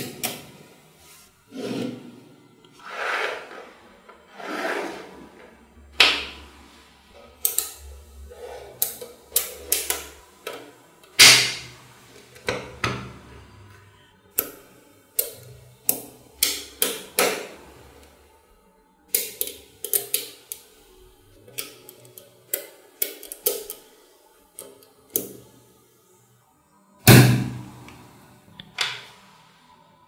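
Small magnetic balls clicking and snapping together as rows and blocks of them are pressed into place, with soft rubbing and sliding of the balls in between. The clicks come irregularly, some singly and some in quick runs of several.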